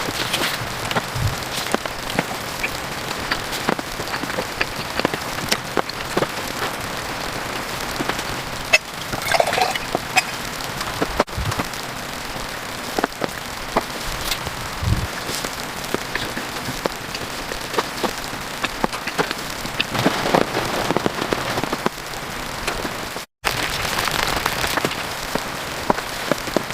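Steady patter of rain falling on a surface, with many scattered sharp drips and ticks, and a brief dropout about 23 seconds in.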